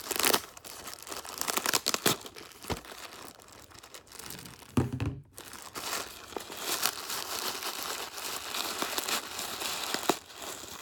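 A shipping package being opened by hand: tape and wrapping torn and crinkled, with a few knocks and a thud about five seconds in.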